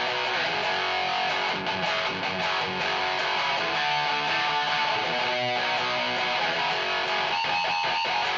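Distorted electric guitar playing a metal riff through a Seymour Duncan Blackouts active bridge pickup and a Peavey 6505 Piranha mini amp with a 1x8 cabinet. Sustained chords give way to a few short, choppy chugs near the end.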